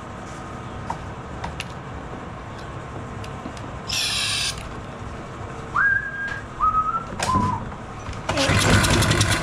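A short hiss of carburetor cleaner sprayed from an aerosol can into the mower's intake, then three short whistled notes, each lower than the one before. Near the end the Briggs & Stratton push-mower engine is pulled over on its recoil starter and cranks loudly, being primed with carb cleaner because it won't start.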